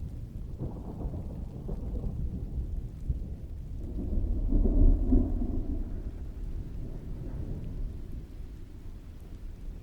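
Distant rolling thunder rumbling low under steady heavy rain, swelling to its loudest about halfway through and then dying away.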